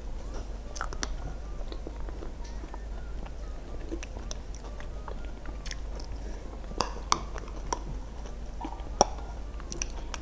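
Close-miked eating sounds of a creamy dessert cup: wet chewing and small mouth clicks, with a few sharper clicks, the loudest about nine seconds in.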